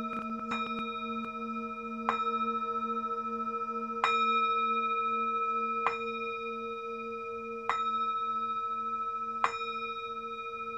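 Singing bowl struck with a mallet about every two seconds, each strike ringing on in several steady overlapping tones, the lowest tone wavering.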